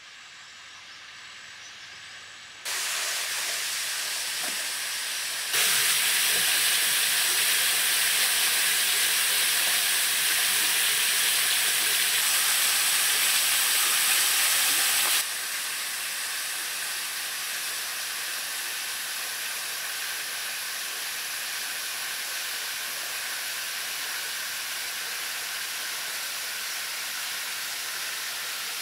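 Waterfall: a thin curtain of water falling down a rock face, a steady rushing hiss. It gets louder in two steps over the first six seconds, is loudest until about fifteen seconds in, then settles at a lower, even level.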